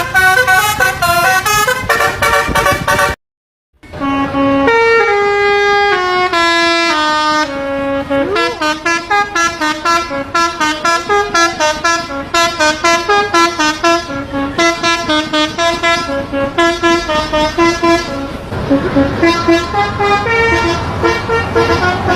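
Telolet basuri bus horn, a bank of tuned horns on an Indonesian bus, playing quick melodies of short stepped notes. The sound cuts out briefly about three seconds in, then another run of horn melodies follows.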